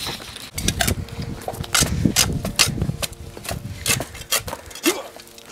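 Shovel blades scraping and chopping into dirt and roots along a concrete curb: an irregular run of gritty scrapes and knocks.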